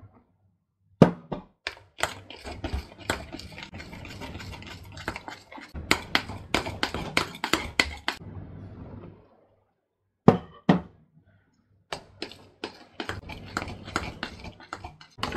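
Metal spoon clinking, knocking and scraping against a mixing bowl at an irregular pace while flour is folded into cake batter by hand. The sound stops dead a few times, for up to a second.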